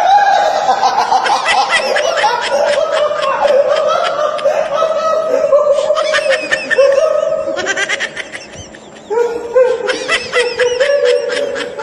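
A person laughing hard and almost without a break, in rapid high-pitched pulses, going quieter for about a second near the end before starting up again.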